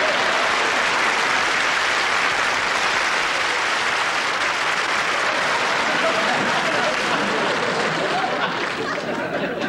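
Studio audience applauding steadily, thinning a little near the end.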